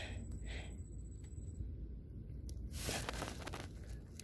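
Faint handling noise from a gloved hand shifting against wet mud at an eel burrow, with one short scraping rustle about three seconds in.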